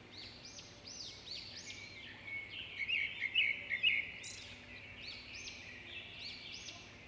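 A chorus of small birds chirping and twittering, many short calls overlapping, busiest and loudest around the middle.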